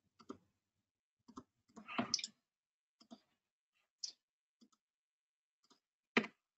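Computer mouse clicks: a scattered, irregular series of short single clicks, with the sharpest one near the end.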